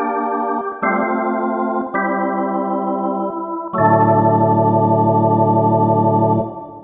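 Electronic organ playing the closing chords: three held chords in a row, then a fuller final chord with a deep bass, held about two and a half seconds and released near the end, leaving a short fade.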